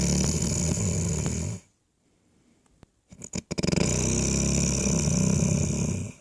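Two long, rough snores, the first ending about a second and a half in and the second starting about three and a half seconds in and lasting some two and a half seconds.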